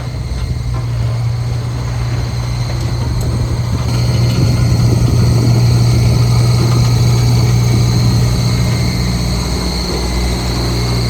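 Diesel engine of heavy construction machinery running steadily with a deep, even hum, getting louder about four seconds in and easing off a little near the end.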